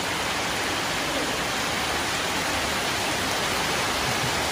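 Heavy rain pouring steadily onto paving stones and foliage, an even hiss.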